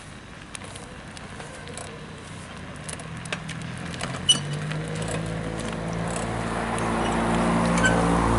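An engine running at a steady pitch, coming in about halfway through and growing steadily louder, after a stretch of light scattered clicks and rattles.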